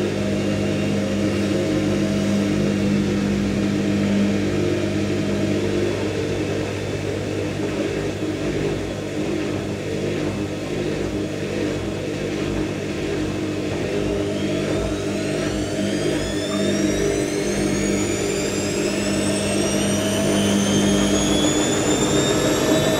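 IKEA RENLIG IWM60 washing machine's drum turning steadily at load-distribution speed with a steady motor hum. From a little past halfway, a rising motor whine as the drum starts to speed up toward an intermediate spin.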